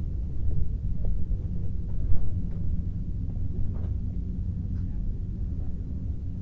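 A low, steady outdoor rumble, with no clear single event standing out.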